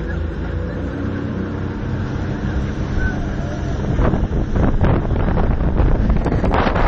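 Suzuki 300 hp outboard motor running on a speedboat under way, growing louder. Wind buffets the microphone more and more heavily from about four seconds in.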